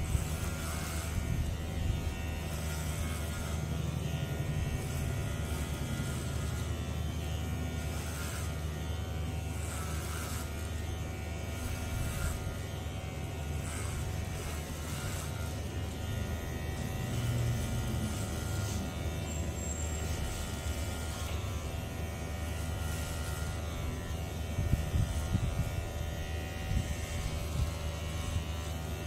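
Cordless electric hair clipper running with a steady buzz as it cuts through short grey hair, the sound growing rougher and louder for a moment near the end as the blades bite in.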